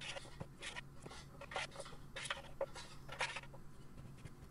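Silicone spatula scraping and pushing oiled sweet potato fries across a metal baking tray: a series of short, irregular scrapes and swishes.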